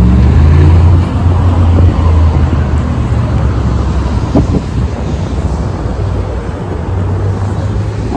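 Wind buffeting the phone's microphone in a loud low rumble, strongest in the first two seconds, over a steady wash of city traffic.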